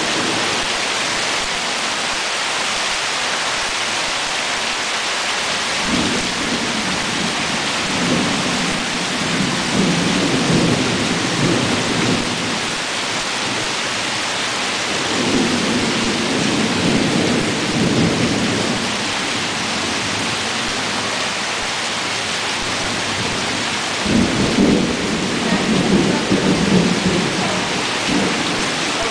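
Steady heavy rain hissing through a thunderstorm, with thunder rumbling three times: about six seconds in, again around the middle, and once more, loudest, near the end.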